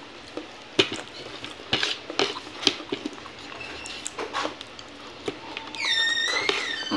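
Light clicks and knocks of a plate and food being handled by hand during a meal. Near the end a cat meows: a long high call that bends in pitch, running straight into a second call.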